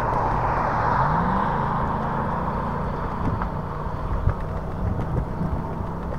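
Hiboy S2 Pro electric scooter riding along: a steady rumble of tyres and wind on the microphone, with a short rising whine about a second in and scattered rattles, the loudest a sharp knock about four seconds in.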